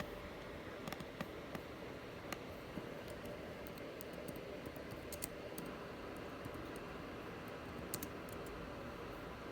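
Light, irregular clicks over a steady background hiss.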